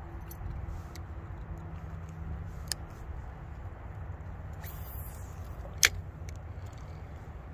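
Spinning reel being handled, with a few light clicks and one sharp click about six seconds in, over a steady low rumble.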